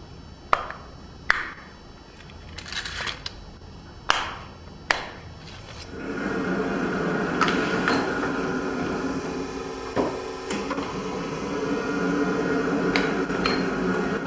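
Sharp plastic clicks and a brief rustle as the anti-tamper seal on a small plastic pod is broken and the pod handled, four clicks in the first five seconds. From about six seconds in, a forklift truck runs steadily as it drives across a concrete floor.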